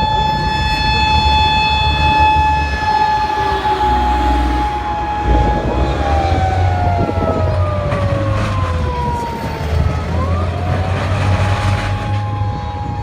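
Emergency siren of a Japan Ground Self-Defense Force NBC reconnaissance vehicle on an emergency run, with the vehicle's engine rumbling underneath. The siren holds a steady tone at first; about six seconds in its pitch slides downward and swoops, and near the end a steady tone returns.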